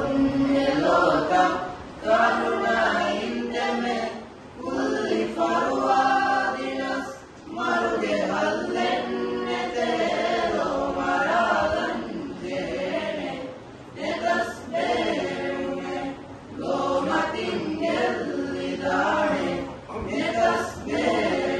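A mixed choir of girls' and boys' voices singing a madhaha, a Maldivian Islamic devotional song, unaccompanied. The singing comes in phrases of a few seconds with short breaks between them.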